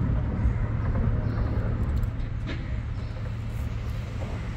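Steady low rumble of road traffic on the bridge overhead, with a few faint clicks.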